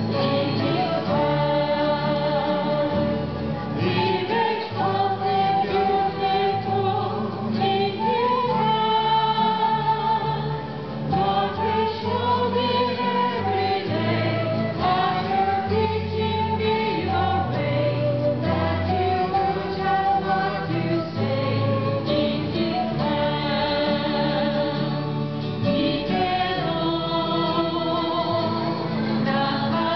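Choir of mostly women's voices singing a church hymn, with sustained low accompaniment notes beneath the melody.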